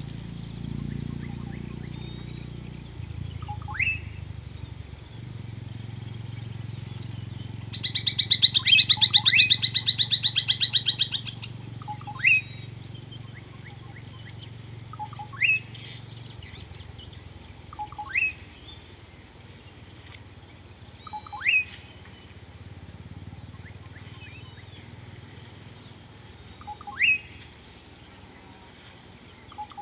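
Wild birds calling. A short upward-sweeping whistle repeats every few seconds, and about eight seconds in a loud, rapid trill runs for about three seconds. A low steady rumble sits underneath.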